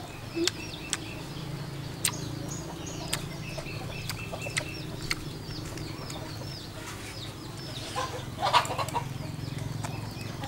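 Chickens clucking, with small birds chirping throughout and a louder burst of clucking about eight and a half seconds in, over a steady low hum.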